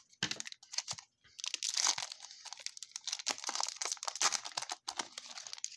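Plastic-foil wrapper of a trading-card pack being torn open and crinkled in the hands, a dense crackling rustle with a short pause about a second in.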